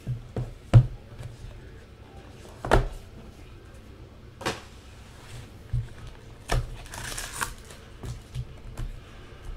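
Cardboard trading-card box being handled and opened: a series of knocks and taps, the loudest about a second in, with a brief crinkling of wrapper around seven seconds.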